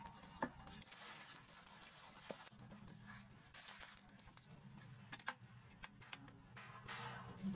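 Faint rustling and crinkling of baking paper and plastic cling film as a cake roll is rolled up and wrapped tightly by hand, with a few light clicks.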